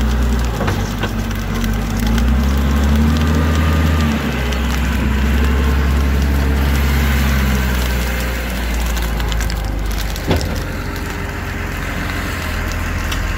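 Diesel engine of a Case wheel loader running under load close by, its note rising for a couple of seconds and then dropping, fading somewhat in the second half. Dense crackling and snapping of dry brush and grass runs over it, with one sharp crack about ten seconds in.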